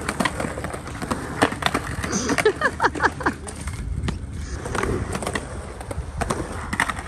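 Skateboards rolling on concrete: a steady wheel rumble broken by many sharp clacks and board impacts, with a brief screeching scrape about two and a half seconds in.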